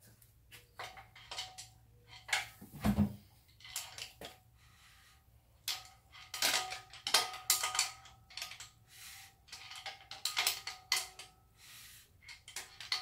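Irregular sharp metallic clinks and clanks of a screwdriver levering against flywheel bolts at the back of a Datsun L28 straight-six crankshaft, turning the bare engine over by hand, with one duller thump about three seconds in.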